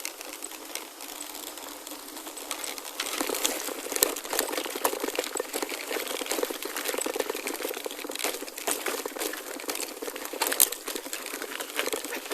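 Gravel crunching and crackling in a dense run of small clicks, growing busier about three seconds in.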